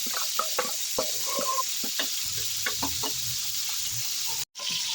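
Kitchen utensil work: irregular clicks and knocks over a steady hiss. The sound cuts out completely for a moment near the end.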